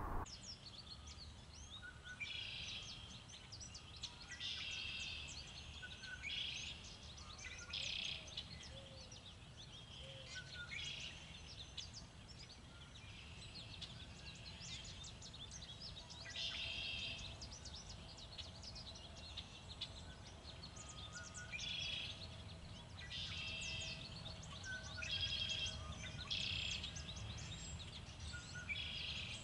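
Wild songbirds singing and chirping in short bursts of quick high notes every second or two, over a steady low wind rumble.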